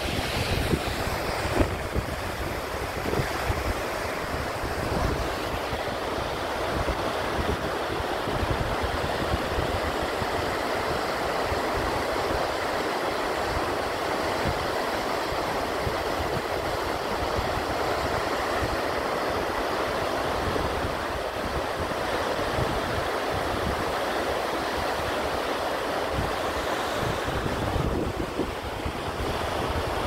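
Waterfall: a dense, steady rush of falling water, with an uneven low rumble underneath.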